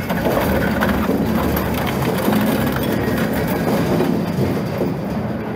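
Industrial twin-shaft shredder grinding scrap metal: a steady heavy rumble with a dense clatter of metal pieces being torn and knocked about.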